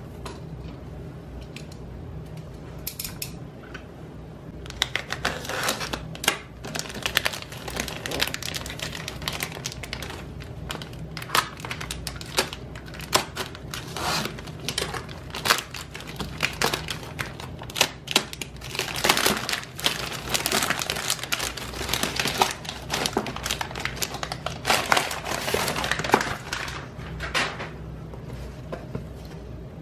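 Packaging rustling as a mail package is opened by hand, in a long stretch of dense, irregular rustles that starts about five seconds in and dies away a couple of seconds before the end.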